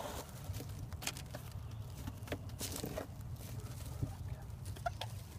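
Chickens pecking close by: scattered light taps at irregular intervals over a faint low rumble.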